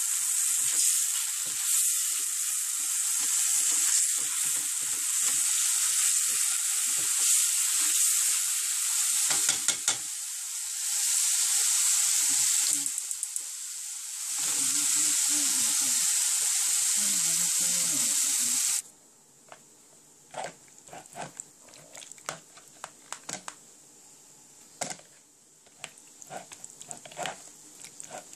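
Minced garlic sizzling hard in hot oil in a sauté pan over high heat, stirred now and then with a spatula; the sizzle dips briefly twice. About two-thirds of the way through it cuts off abruptly, and a spatula pushing sauce-coated chicken pieces around in a strainer gives quiet, irregular wet clicks and squelches.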